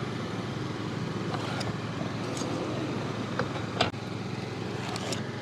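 Steady background noise of the kind made by road traffic, with a few short clicks or knocks; the sharpest comes a little before four seconds in.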